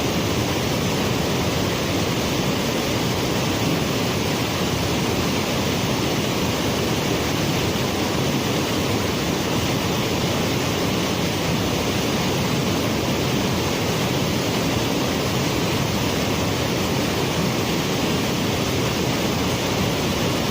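Waterfall, a steady rush of falling water with no change in level.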